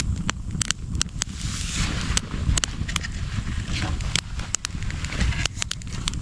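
Campfire of fat wood crackling, with many sharp, irregular pops over a steady low rumble.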